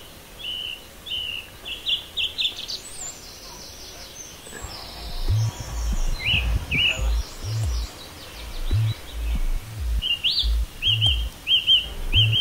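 Small birds chirping in quick repeated short calls. About five seconds in, a deep pulsing bass line of music comes in under the birdsong.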